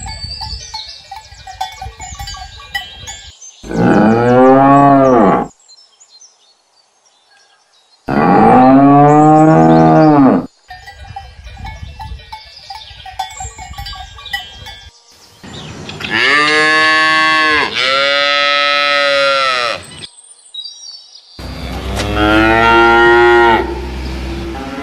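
Cattle mooing: about five long, loud moos, each rising then falling in pitch, with quieter stretches between them and abrupt cuts between clips.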